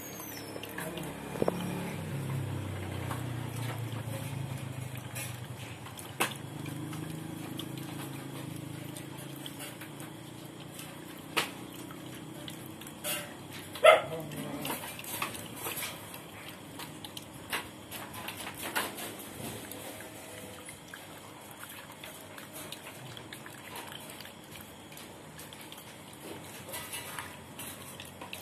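A dog lapping milk from a steel pot, with a few sharp clicks scattered through, the loudest about halfway in. A low hum runs under roughly the first half.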